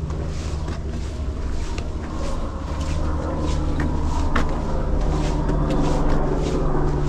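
Footsteps of a hiker crunching on a dirt and stone mountain trail at a walking pace of about two steps a second, over a steady low drone that grows slightly louder after a couple of seconds.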